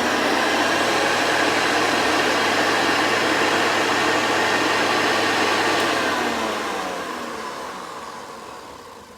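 Vintage Hoover 707 vacuum cleaner motor running at full speed, then switched off about six seconds in and winding down in falling pitch. The owner feels the motor doesn't sound 100% and listens for a metal sound at the end of the run-down.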